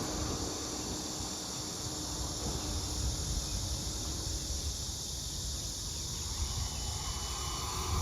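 Strong wind buffeting the microphone in low gusts under a steady high-pitched hiss, with a faint falling whine starting near the end.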